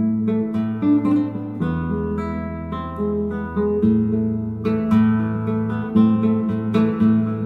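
Background music led by acoustic guitar: plucked notes over a steady, pulsing bass line.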